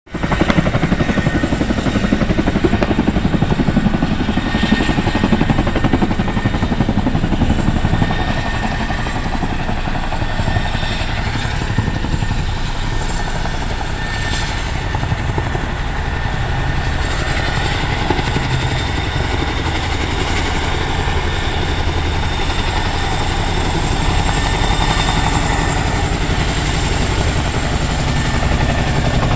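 Military helicopter flying past with steady rotor chop, louder in the first eight seconds or so.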